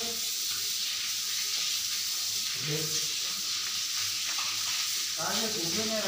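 Water from a hose spraying onto buffaloes and splashing on the wet shed floor: a steady hiss. Voices are briefly heard about halfway through and near the end.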